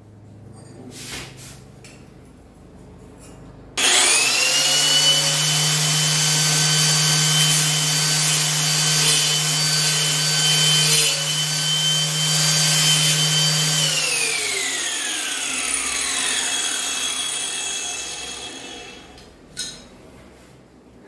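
Electric angle grinder with a cutting disc switched on about four seconds in, running at a steady high whine while it cuts a white ceramic tile, then switched off and winding down with a falling whine. A short knock follows near the end.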